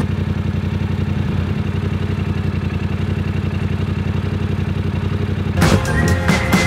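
Adventure motorcycle engine idling steadily, an even fast pulse. Near the end, music with drums comes in over it.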